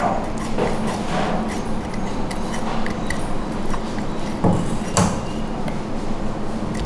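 Knife working along the ribs of a split suckling pig on a wooden cutting board, the blade giving a few sharp knocks against bone and board, two louder ones close together near five seconds in, over a steady low hum.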